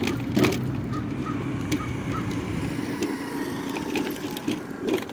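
Road traffic passing on a busy street, a steady low rumble with a few clicks. Between about one and two seconds in come four faint short chirps.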